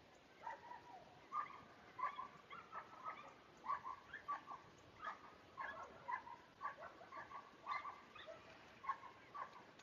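A dog barking in quick short yips, about two a second.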